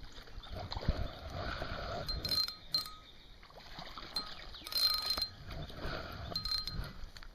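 Several light metallic clinks, each ringing briefly at the same high pitch, over rustling, rumbling handling noise in the first couple of seconds.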